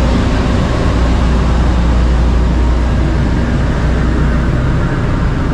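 Wind blowing over the microphone on an open ship deck at sea: a loud, steady rumble with hiss.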